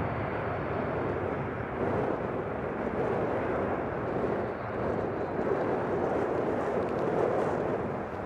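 Jet airliner engines heard at a distance, a steady rushing rumble that swells slightly now and then.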